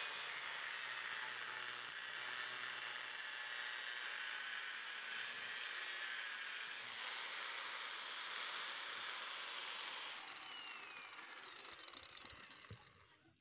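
Old truck brake lining being cut to shape: a steady cutting noise that fades away near the end.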